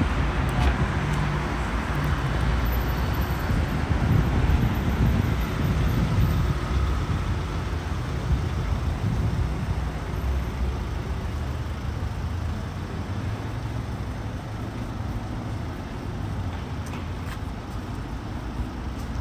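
Road traffic: cars passing on a city street, a steady rush of tyres and engines that gradually eases off toward the end.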